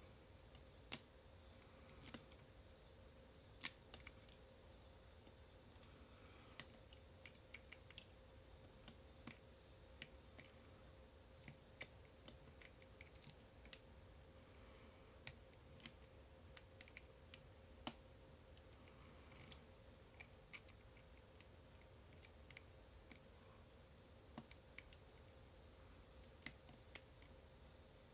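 Faint, irregular small clicks and ticks of a lock pick and tension tool working the sliders of a bicycle U-lock's slider sidebar core, a few louder clicks standing out among them.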